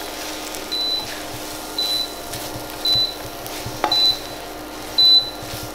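Short, high electronic beeps repeating about once a second, typical of an induction hob warning that no pan is sitting on the cooking zone, over a steady hum. One light knock of the spatula or pan comes a little before the end.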